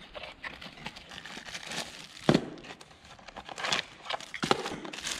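Plastic packaging bags crinkling and rustling as parts are handled and unpacked by hand, with a few louder crackles, the loudest about two seconds in.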